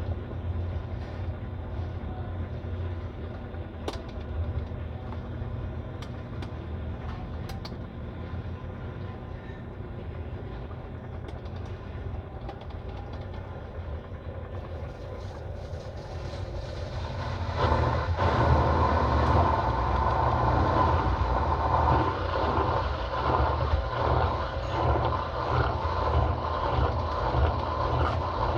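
Brastemp Total 7 kg (BWL07) washing machine running with a steady low hum. About 17 seconds in it gets louder, adding a rough, rapidly pulsing sound.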